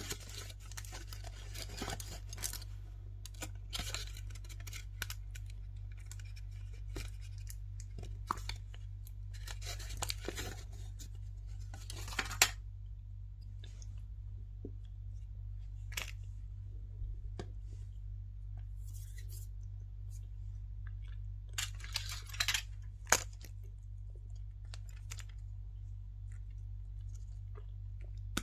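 A surprise egg being unwrapped and opened by hand: spells of crinkling and tearing of the wrapper, with a few sharp clicks or snaps, the loudest near the middle and near the end. A steady low hum runs underneath.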